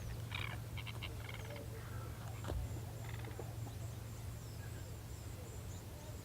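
Wild birds calling: several short, rapidly pulsed calls in the first second and a half and again about three seconds in, with a thin high note held from about two seconds on, over a steady low hum.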